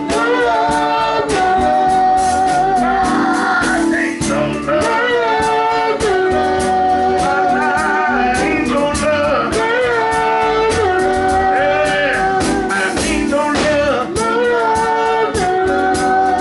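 Gospel group singing with held, wavering notes over a live band of electric guitars, bass guitar, drums and keyboard.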